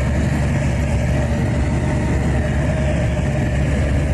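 A heavy engine or motor running steadily at an even pitch, with a strong deep hum.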